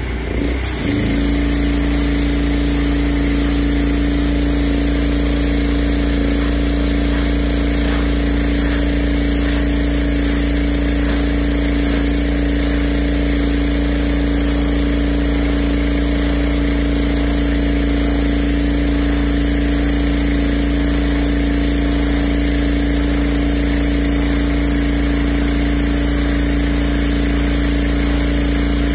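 Pressure washer running steadily, its spray hissing against a concrete slab.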